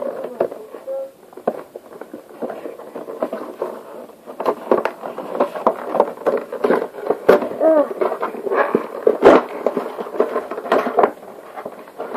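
Plastic and cardboard toy packaging being wrestled open: crinkling and crackling, with several sharp snaps and pops, louder and busier in the second half.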